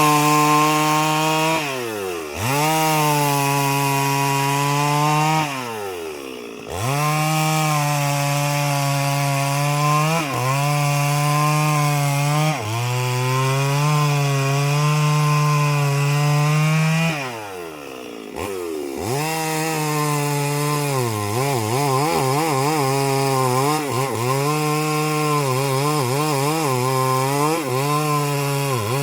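Chainsaw cutting a large tree at full throttle, its pitch wavering as the chain works through the wood. Three times it drops back toward idle and revs up again to cut on.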